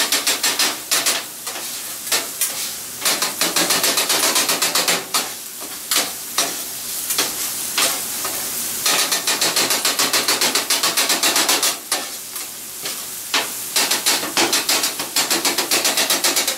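Two metal spatulas chopping and scraping on a hot flat-top griddle, rapid sharp clacks in quick runs with short pauses, as scrambled eggs are chopped into fried rice. Food sizzles steadily underneath.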